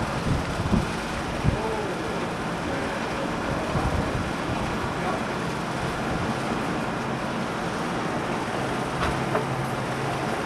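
Sandstorm wind blowing as a steady rushing noise, buffeting the microphone, with a couple of short thumps in the first two seconds.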